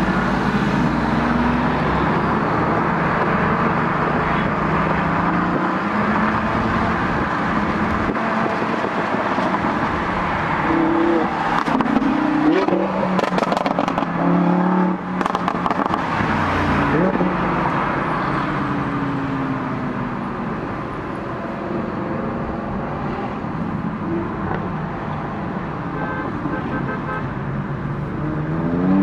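Supercar engines and exhausts running and revving as the cars pull away ahead, heard from inside a following car, with engine pitch rising and falling several times around the middle and climbing sharply right at the end.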